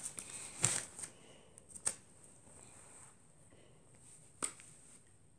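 Sheet of paper being handled and rustling in the first second or so, then three short sharp clicks or taps spread out over the next few seconds.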